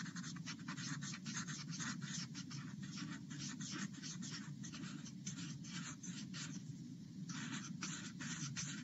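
Rapid short strokes of a drawing tool scratching on paper as shading is laid around drawn spirals, many strokes a second, with a brief pause near the end.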